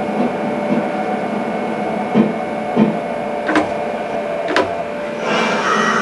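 Driving-simulator cab sound of an electric train slowing into a station: a steady running whine with two dull thumps, then two sharp clicks, and a hiss that comes up about five seconds in.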